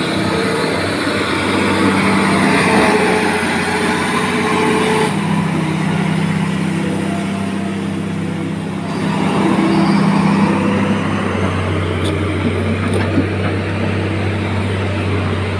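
Hitachi ZX350H-5G excavator's diesel engine running steadily, with its note shifting a couple of times as the boom and bucket are worked.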